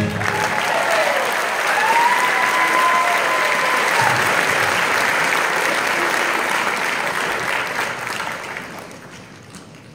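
Audience applauding at the end of a dance performance, with a long cheer sliding up and down over the clapping in the first few seconds. The applause dies away near the end.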